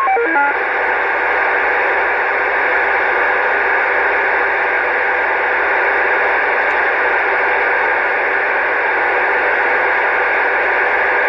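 CB radio receiver hissing with steady static over the speaker. A short run of falling beeps, like a roger beep, sounds right at the start, and the even static then holds without a break.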